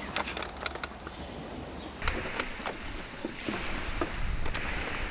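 Outdoor wind rumbling on the microphone, stronger from about two seconds in, with a scattering of light clicks and knocks from camp gear being handled.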